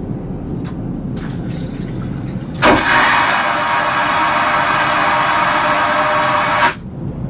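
Airliner vacuum toilet flushing: a sudden loud rushing hiss that opens with a thump, holds for about four seconds and cuts off abruptly. It plays over the steady low drone of the aircraft cabin, with a few faint clicks before it.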